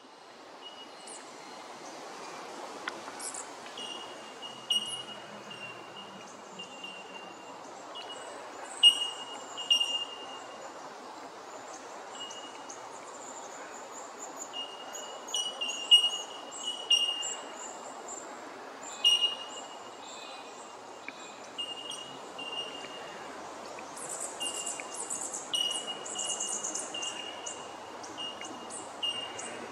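Birds calling in bushland: many short, high, ringing notes, all at about the same pitch and irregularly spaced, with thinner, higher chirps that thicken about three-quarters of the way through, over a steady outdoor hiss.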